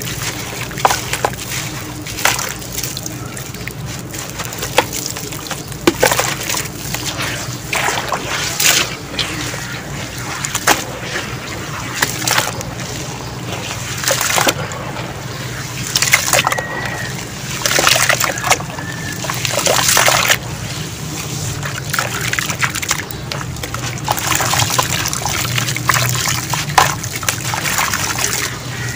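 Hands crumbling and squishing lumps of sand-and-cement mix into water in a tub: irregular sloshing and splashing, with gritty crumbling as the lumps break apart.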